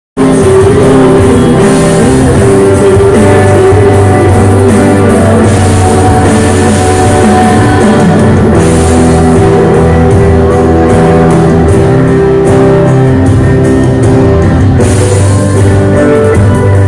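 Live pop-rock band playing loud through the JLP Disco Mobile PA system: electric and acoustic guitars, drums and keyboard, with a woman singing.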